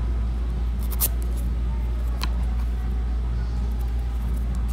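Two single strokes of a metal nail file across a fingernail, about a second in and again a little after two seconds, smoothing an acrylic patch level with the natural nail. A steady low hum runs underneath.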